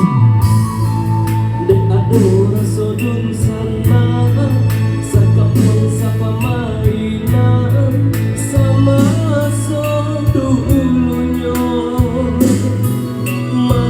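Band music with a singer, over a steady bass line and regular drum hits, played at a sound check.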